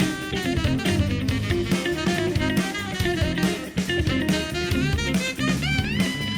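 Instrumental music with a drum kit, bass and guitar playing a jazzy groove, with no singing.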